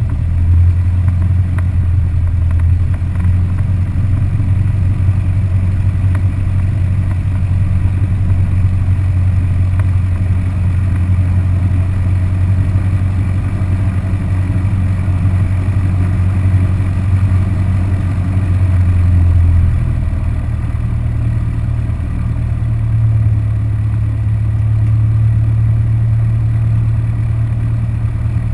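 Cessna 172R's four-cylinder Lycoming engine and propeller running at low taxi power, a steady low drone. About twenty seconds in the engine note steps up a little and stays there.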